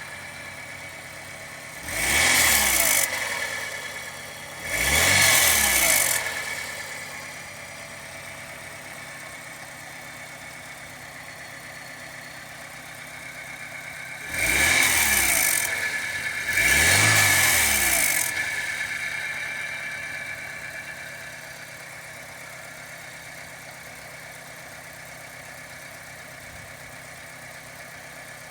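Turbocharged car engine idling and blipped four times in two pairs, each rev rising and falling away. A steady high whine runs over the engine throughout and grows louder with each rev. This is the abnormal turbo noise that the owner fears means the turbo is finished.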